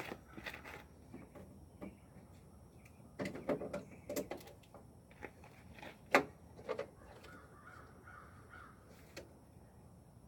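Scattered plastic clicks, knocks and creaks as the stock bulb and its socket are twisted and worked loose from the back of a truck headlight housing. There is a busy stretch a few seconds in and one sharp click about six seconds in.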